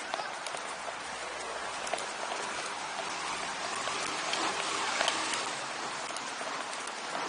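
Footsteps of a crowd of runners on the road: a dense, steady rush of shoe strikes that swells a little about four seconds in.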